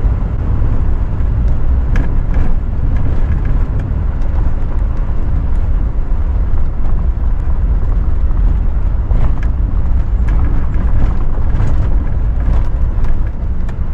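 Four-wheel-drive vehicle driving on a sandy dirt road: a steady low rumble of engine and tyres, with scattered small knocks and rattles as it goes over bumps.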